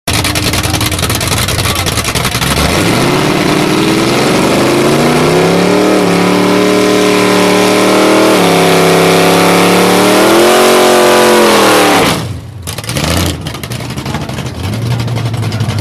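Car engine revving up under acceleration. Its pitch climbs, drops at a gear change about eight seconds in, climbs again, then cuts off about twelve seconds in. A lower, steady engine note starts near the end.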